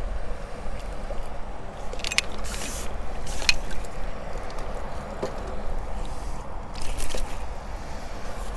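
A landing net being lifted out of the water with a small fish in it: a few short splashes and scrapes about two, three and a half and seven seconds in, over a steady low wind rumble on the microphone.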